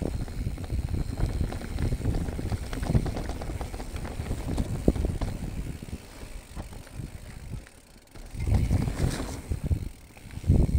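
Specialized Status 160 mountain bike riding a leaf-covered dirt trail: wind rumble on the microphone, with the tyres crunching over dry leaves and quick rattles and knocks from the bike over bumps. It goes quieter for a moment about eight seconds in, then picks up again.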